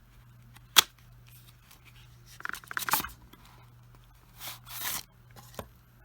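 Cardboard packaging being handled while opening a product box: a sharp tap or click about a second in, then brief scraping and rustling as the box is slid and opened.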